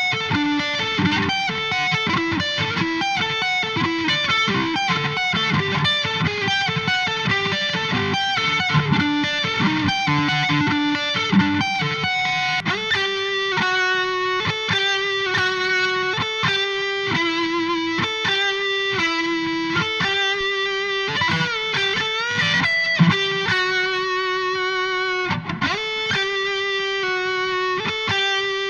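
Electric guitar played through a Vox VT20X Valvetronix modelling amp on a preset tone. The first dozen seconds are fast and busy, and after that comes a run of held single notes.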